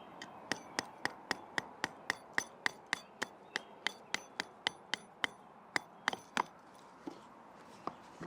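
Batoning: a wooden baton striking the back of a Victorinox Ranger Swiss Army knife's blade to drive it through wood, a quick run of sharp knocks about four a second that stops about six and a half seconds in, followed by a couple of single knocks.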